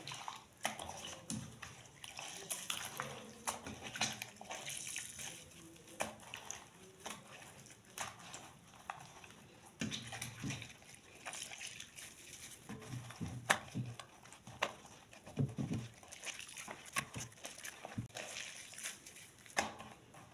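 Soapy water sloshing and splashing in a bowl as wet socks are rubbed and squeezed by hand, in irregular bursts.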